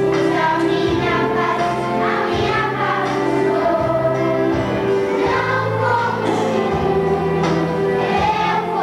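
A children's choir singing a song together over instrumental accompaniment, with sustained low bass notes under the voices.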